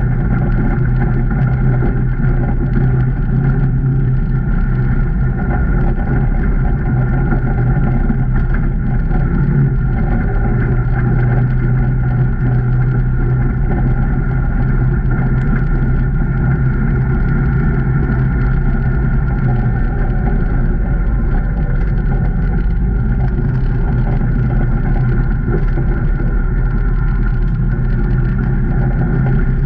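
The 2019 Can-Am Maverick Trail 800's Rotax V-twin engine running at a steady, even pace while driving, with no big revs or drops.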